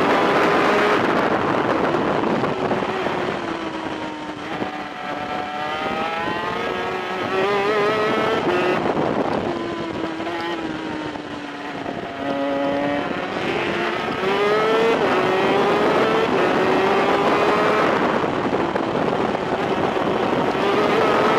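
Onboard sound of a 250cc VM twin-cylinder two-stroke superkart engine at racing speed. The revs fall as it slows for corners, around four seconds in and again around eleven seconds in, then climb again under acceleration.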